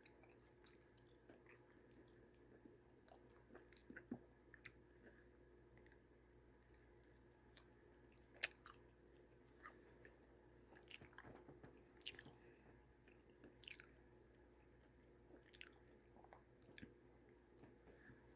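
Faint chewing of crisp fried beef and cheese mini tacos, with scattered short crunches and mouth clicks; the sharpest crunch comes near the middle.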